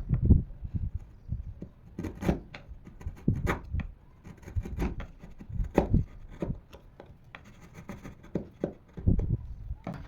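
Hand work on wood: irregular knocks and short rubbing, scraping strokes.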